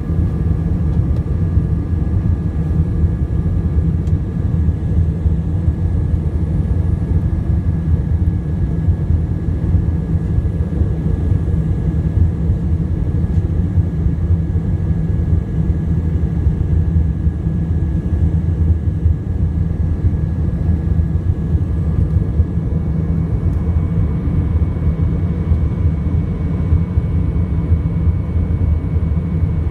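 Airbus A319-100 cabin noise in flight, heard inside the cabin by a window over the wing: a steady, loud engine and airflow rumble with a few faint, steady high whines on top. About three-quarters of the way through, one whine gives way to a slightly higher one.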